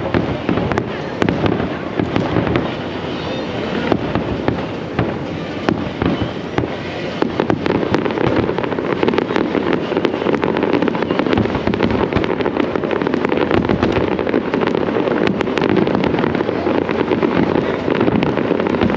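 Fireworks display: a dense, continuous crackle of shells bursting, with many sharp pops packed close together.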